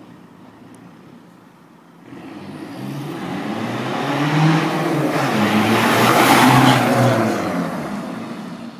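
Fiat Punto JTD diesel engine's exhaust: a quiet idle, then about two seconds in it rises into repeated revving, loudest around six seconds, then dies back down near the end.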